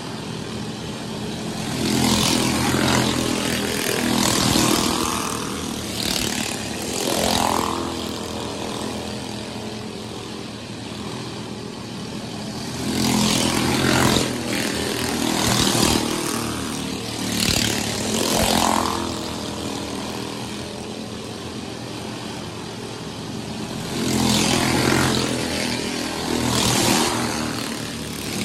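Dirt-track race cars lapping the oval. Their engines swell loud each time the field passes, about every eleven seconds, rev up with a rising pitch as they accelerate away, and drop to a distant drone between passes.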